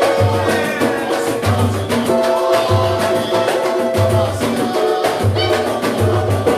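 Live samba music from a band: percussion with a deep drum beat about once a second, under steady pitched instruments.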